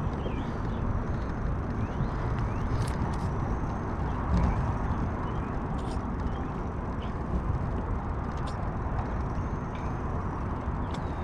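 Steady low rush of wind and road noise from a moving bicycle ride, with a few faint clicks.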